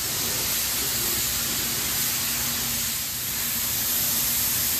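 3M gravity-feed spray gun laying on a heavy coat of paint: a steady, loud hiss of compressed air and atomised paint.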